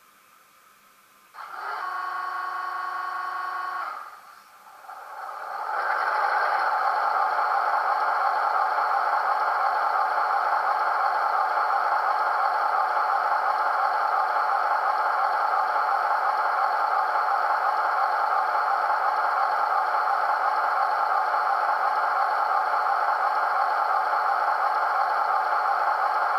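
ST43 diesel locomotive sounds played through a model locomotive's sound decoder and small speaker. A steady pitched tone sounds for about two and a half seconds, then the diesel engine starts up, swelling over a second or two, and settles into a steady idle.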